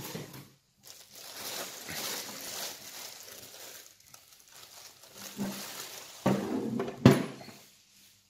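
Plastic wrapping rustling and crinkling as it is pulled off a circular saw, with handling noises and a sharp knock about seven seconds in.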